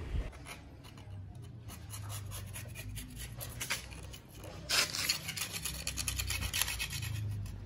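Thin metal strip scraping and rasping in the tube openings of an aluminium radiator core, in short repeated strokes that come thicker and faster from about halfway through. The strokes are clearing tubes clogged with scale.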